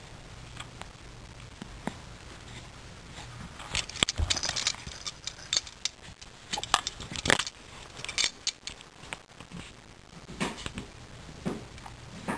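Irregular rustling and crinkling with light clicks, loudest and busiest from about four to eight seconds in: close handling noise as a baby squirms on a fabric play mat and the camera is moved.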